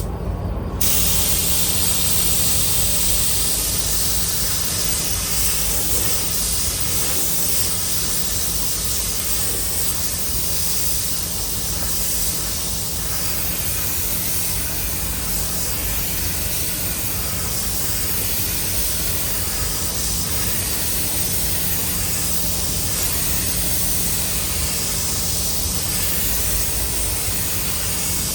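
Compressed-air paint spray gun hissing steadily as paint is sprayed, with a steady low hum underneath.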